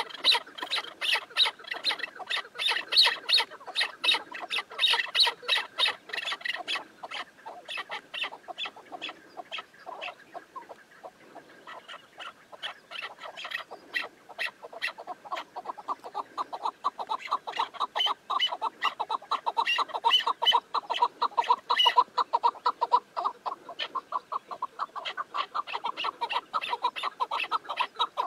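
Chukar partridges calling. A quick series of sharp, high repeated notes thins out after about 7 s. From about 16 s a faster, lower-pitched run of notes carries on.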